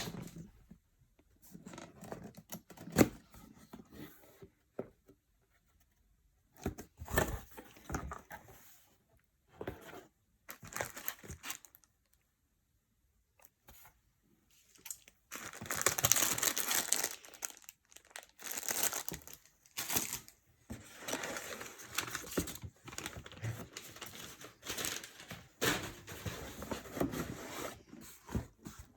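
Packaging being unwrapped by hand, rustling and crinkling in irregular bursts, with a longer continuous stretch of handling about halfway through.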